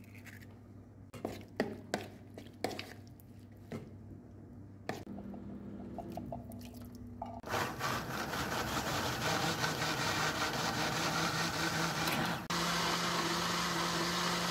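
A few sharp clatters and knocks of a utensil against a plastic mixing bowl. Then, from about halfway, a pot of sweet corn soup at a rolling boil, a steady loud bubbling hiss.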